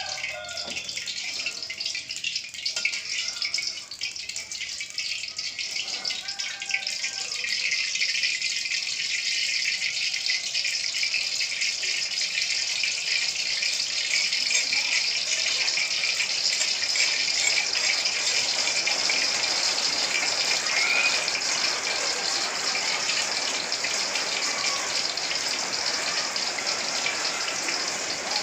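Seasoning paste frying in hot oil in a pan: a steady crackling sizzle that grows louder about eight seconds in.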